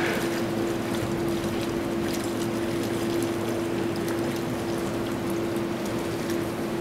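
Liquid sloshing and splashing as hands stir calf milk replacer into water in a metal mixing cart, over a steady machine hum.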